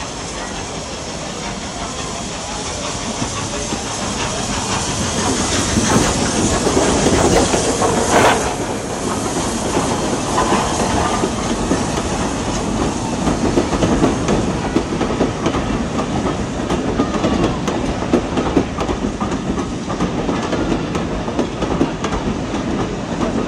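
Model train running on the layout, its wheels clicking over the rail joints, growing louder over the first several seconds and then running on steadily.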